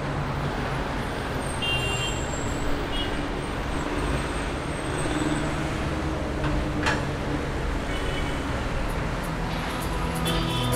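Road traffic noise: a steady hum of car and bus engines in a traffic jam, with a couple of brief high-pitched tones early on and a sharp click about seven seconds in. Music begins near the end.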